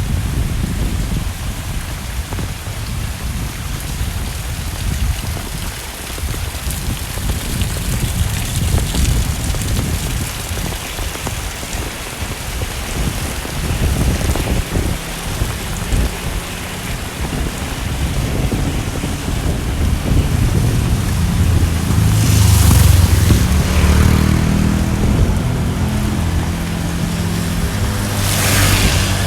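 Heavy rain falling steadily, with a low rumble underneath. In the second half a motor engine hum rises and falls, with two brief hissing surges like tyres passing through water, one about two-thirds in and one near the end.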